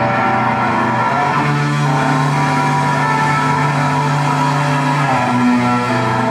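A live instrumental math-rock band playing, led by electric guitars holding sustained chords. A low note is held from about one and a half to five seconds in.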